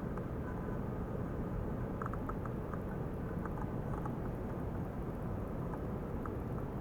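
Steady low rushing noise with scattered light ticks, from water churning and bubbling in an ultrasonic tank.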